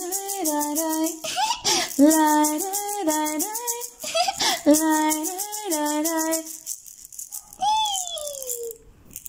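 A woman singing a short, repeated wordless melody to a steady shaker rattle. Both stop about two-thirds of the way through, followed by one long falling sung note.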